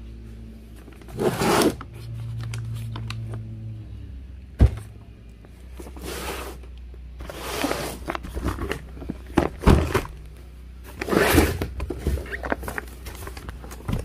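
Cardboard firework cakes and boxes being handled: several scrapes and rustles of cardboard, with sharp thuds about four and a half and ten seconds in as boxes are set down, over a low steady hum.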